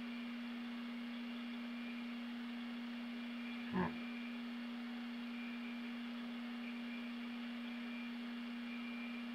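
A steady low hum on one unchanging tone, over a faint hiss. A brief soft sound comes about four seconds in.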